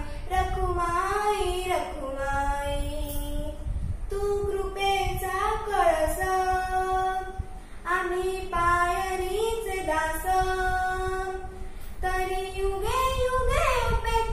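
A young girl singing a Marathi devotional song to Vitthal and Rukhmai, unaccompanied, in long phrases of held notes with short breaks for breath.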